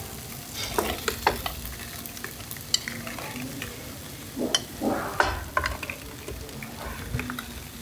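Food frying on a hot tabletop griddle as rolled slices of raw pork belly are tipped from a bowl onto it, with a steady sizzle. Metal tongs click and scrape against the bowl and griddle, most sharply about a second in and again around the middle.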